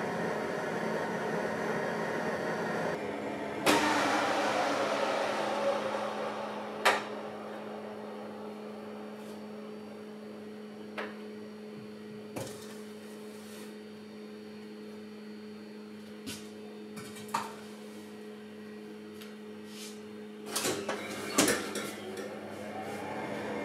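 Convection oven's fan running with a steady hum, a louder rush of air about four seconds in that fades over the next few seconds, and scattered short knocks and clunks as metal cake tins are set into the oven.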